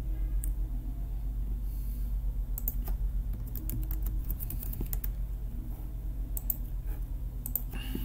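Keystrokes on a computer keyboard, scattered single taps and short quick runs, over a steady low hum.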